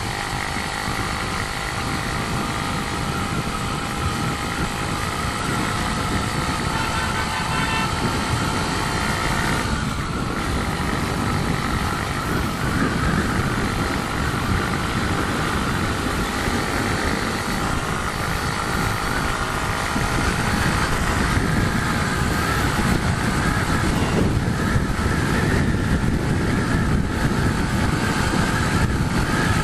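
Motorcycle engine running steadily on the move, its pitch drifting slowly up and down, under a dense low rumble of wind and road noise.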